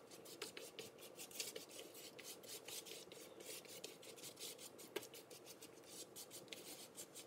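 Faint, quick rubbing strokes of a rubber-gloved hand spreading a foamy baking soda, vinegar and dish soap paste across oven door glass, several strokes a second.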